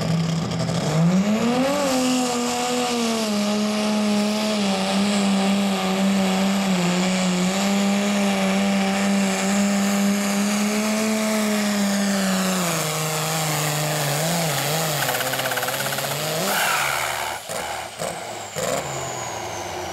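Super stock pulling tractor's engine running hard at high revs under load as it drags the weight sled. The pitch climbs in the first couple of seconds, holds steady, drops about two-thirds of the way through and dies away near the end, with a high whine falling in pitch as it winds down.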